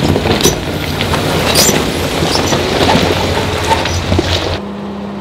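Jeep Wrangler JK crawling over loose rock, its engine running low under the crunch and clatter of tyres on stones as it passes close by. About four and a half seconds in, the sound cuts off abruptly to a quieter steady hum.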